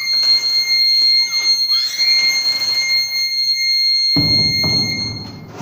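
A 9-volt battery-powered buzzer alarm sounding one steady, high-pitched tone and cutting off just before the end. It is set off because a door opening has pulled the paper strip out of the clip and completed the circuit. A low rumbling noise joins it about four seconds in.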